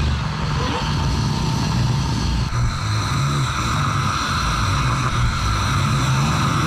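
A man snoring very loudly with a deep, steady rumble that sounds like a Harley motorcycle engine.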